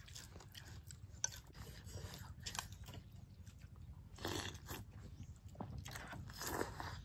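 A person eating: chewing and crunching bites, with two louder crunchy bites about four seconds in and near the end, over a low steady hum.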